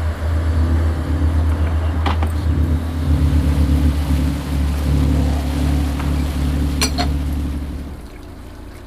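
Lobster boat engine running steadily, a low drone, with two light knocks about two seconds in and near seven seconds; the drone fades out near the end.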